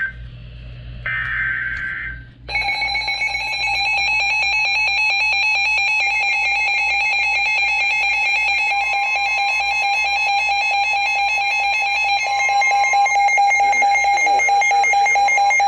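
Emergency Alert System tones: a short burst of screechy digital header data, then about two and a half seconds in the steady two-tone EAS attention signal starts and holds, loud and with a fast flutter, over a low electrical hum.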